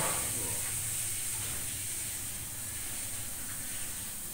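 Steady high hiss with a low hum underneath, and one short faint sound right at the start.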